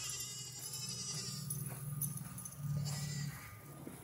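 Goats bleating from their pen, a couple of drawn-out, wavering bleats, the louder one near the end.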